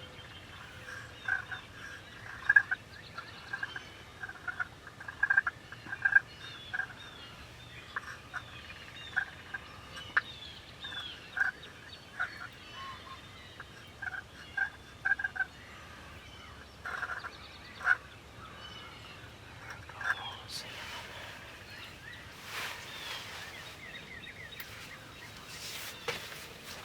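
Wild turkey calling: runs of short, loud notes repeated over and over for most of the stretch, with songbirds chirping faintly behind. Near the end the calls give way to scratchy rustling.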